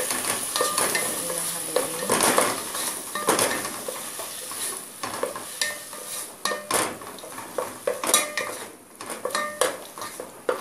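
Wooden spatula stirring sautéed tomato, onion and garlic in a metal pot, scraping and knocking irregularly against the pot over the sizzle of the frying vegetables.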